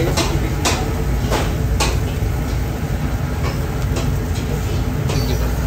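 Metal tongs clicking several times against a charcoal grill grate as grilled fish is lifted and turned, over a steady low rumble of kitchen noise.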